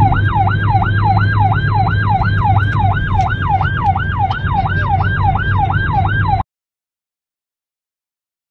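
Police siren in a fast yelp, its pitch sweeping up and down about three times a second over a low steady hum. It cuts off suddenly about six and a half seconds in.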